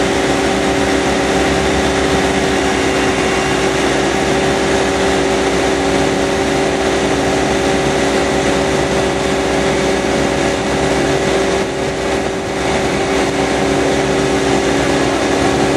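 Engine of a hydraulic thruster's power unit running at steady speed with an even hum, over the hiss of the propeller wash churning the water. The level dips briefly about twelve seconds in.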